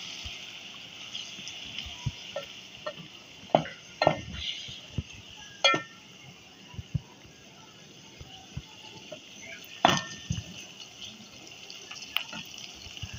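A wooden spoon stirring sliced onions in an aluminium pot, knocking and scraping against the metal several times, loudest about ten seconds in, over the steady hiss of the onions frying.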